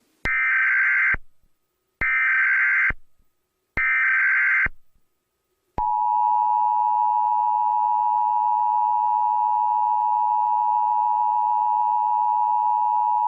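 Emergency Alert System alert: three short bursts of screeching digital data tones (the SAME header), then, about six seconds in, the steady two-tone EAS attention signal begins and holds.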